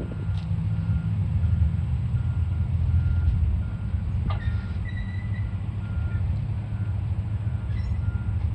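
Diesel engine of a John Deere construction machine running steadily, with a backup alarm beeping faintly about once a second. A brief high squeal comes about halfway through.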